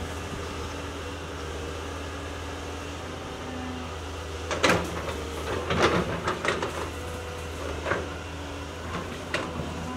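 Caterpillar 320C excavator's diesel engine running steadily, with a burst of loud cracking and snapping about halfway through and a few single cracks near the end as its arm breaks branches and small trees.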